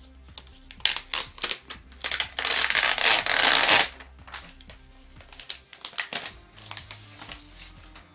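Clear plastic protective film being peeled off the underside of a Mac mini: crinkling and crackling, with one loud continuous peel about two seconds in that lasts nearly two seconds, then a few more crinkles.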